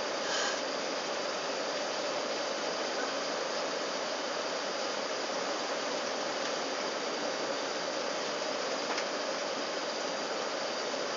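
Steady cabin noise inside an Airbus A380 airliner on approach: an even rush of airflow and engine noise. A brief small sound comes just after the start, and a faint click about nine seconds in.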